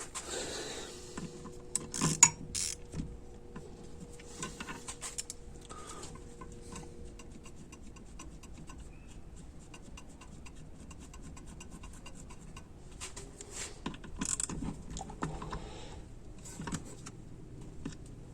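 Small metal transmission valve-body parts clicking and clinking as they are handled and fitted, in scattered taps with a few sharper knocks about two seconds in and again near fourteen seconds.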